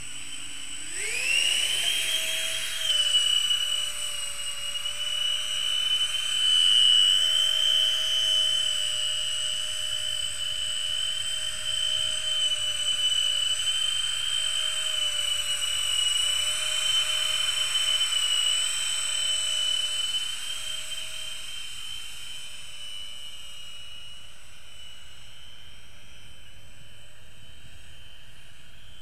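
Electric ducted fans of a thrust-vectoring drone spooling up about a second in to a steady high-pitched whine at flight power. The whine drops in level about two-thirds of the way through but keeps running.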